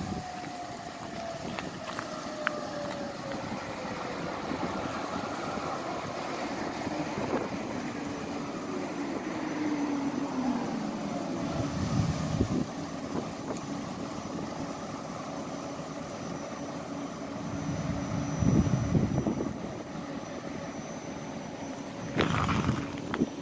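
Electric tram pulling into a station: its motor whine falls in pitch twice as it slows, then settles into a steady hum as it stands at the platform. Wind buffets the microphone in a few low thumps, the loudest of them about 18 seconds in.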